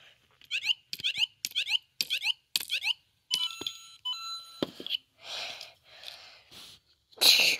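LEGO Super Mario Luigi interactive figure playing electronic game sound effects through its speaker. A quick run of short chirps comes first, then a pair of steady beep tones, then several short noisy bursts, the loudest near the end.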